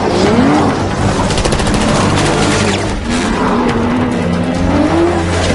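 Film car-chase soundtrack: sports-car engines revving up and down, with bursts of rapid gunfire about a second in, over a film score.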